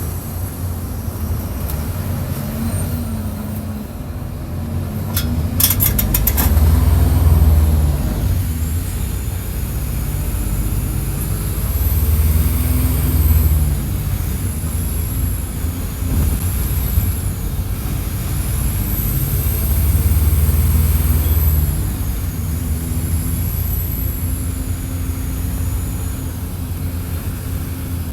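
Mercedes-Benz OF-1722 bus engine, heard close up, running under load. It swells three times in long pulls, each with a high whine rising and falling along with it, and there is a quick run of clicks about five seconds in.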